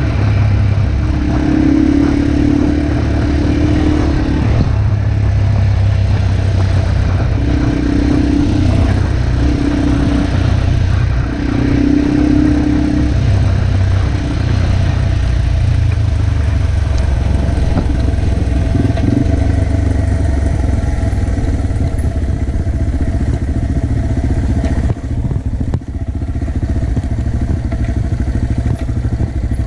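Yamaha TW200's single-cylinder four-stroke engine running steadily under way on a dirt road, the engine note rising and falling a little in the first half. The engine eases off near the end as the bike slows.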